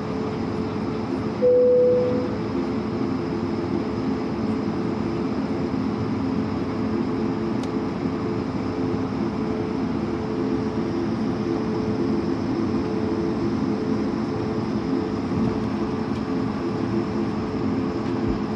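Cabin noise of an Airbus A220-300 taxiing, heard from a seat over the wing: a steady rush of air with a low, even hum from its Pratt & Whitney PW1500G geared turbofans at taxi power. A short single tone sounds briefly about a second and a half in and is the loudest moment.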